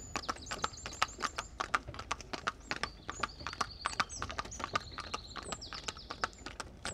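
Horse hooves clip-clopping in quick, uneven beats, as of horses travelling along a road, with high repeated chirping over them.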